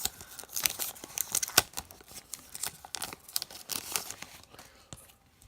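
Crinkling and rustling of a trading-card pack wrapper and cards being handled, with irregular crisp crackles that die away near the end.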